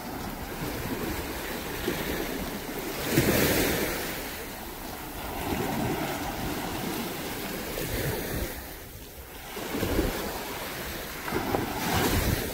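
Surf washing onto a beach, with wind buffeting the microphone; the noise swells and eases every few seconds.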